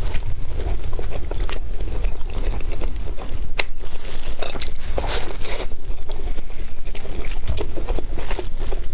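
Biting and chewing an egg wrap, with irregular sharp crunchy clicks and crackles over a steady low rumble.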